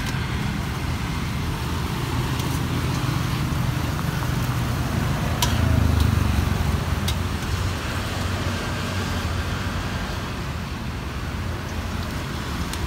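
Steady road traffic rumble, swelling as a vehicle passes about halfway through, with a few light clicks.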